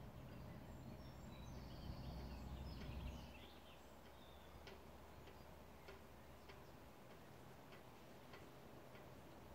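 Faint outdoor ambience. A low rumble fades out about three seconds in, a few high chirps come from about one and a half to three seconds, and then a regular sharp tick sounds a little under twice a second until near the end.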